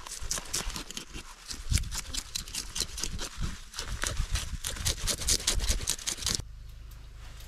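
A knife scraping small scales off a fish in rapid, repeated strokes. The scraping stops abruptly about six seconds in, giving way to a steady low hum.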